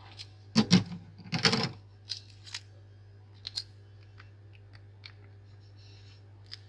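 Shattered iPhone X back glass crunching and clicking as it is prised up from the phone's frame with a hand tool. There are two louder crunches in the first two seconds, then scattered light clicks.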